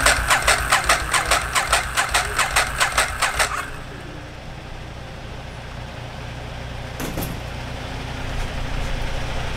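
Ducati Monster 1100's air-cooled L-twin engine running loud, with an even pulsing beat of about four pulses a second, then cutting off about three and a half seconds in.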